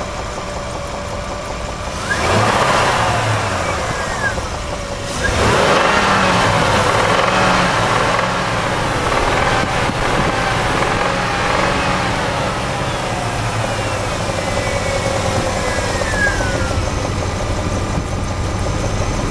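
Warmed-up 4.7-litre engine idling, then revved twice, about 2 and 5 seconds in, the second rev held and easing slowly back down to idle. The engine is running with a knock that appears once it is warm.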